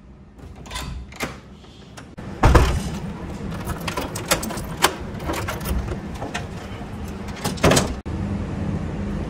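A door is shut with a heavy thud about two and a half seconds in, followed by a run of metallic clicks and rattles as a bunch of keys jingles and a key turns in the door's lock, then another loud thump near the end.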